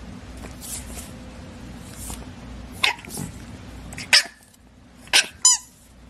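English bulldog puppies making soft snuffly breathing noises, then a few short sharp squeaks and snorts. The last squeak, near the end, falls in pitch.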